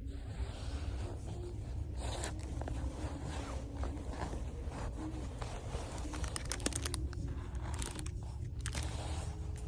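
Irregular rustling, crinkling and scraping handling noises with scattered sharp clicks, over a steady low rumble.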